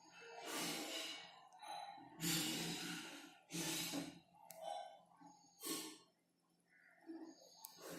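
A person breathing heavily and sighing close to the microphone, one loud breath every second or so.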